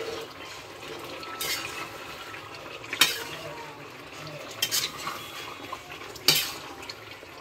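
Metal spatula stirring and scraping chicken curry around a metal kadhai, with three sharp clinks of the spatula on the pan, the loudest about three seconds in and near the end.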